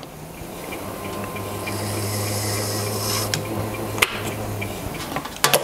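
Mini lathe running with a steady hum, spinning a brass bar, while a pointed tool lightly scratches marking lines into the layout-blued brass. The lathe stops about five seconds in, with a couple of sharp clicks.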